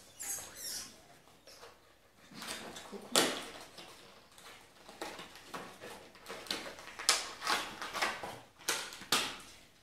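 Cardboard box and clear plastic tray of a set of metal coasters being handled and unpacked: irregular rustling with several sharp clicks, busier in the second half.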